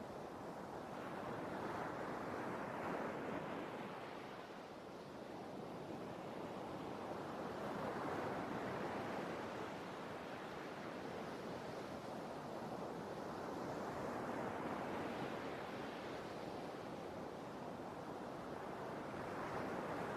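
Sea waves washing onto a shore, the surf swelling and fading in slow surges about every five to six seconds.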